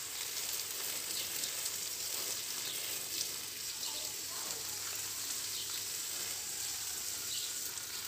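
Garden hose spraying water onto leafy plants, a steady hiss, with a few faint bird chirps over it.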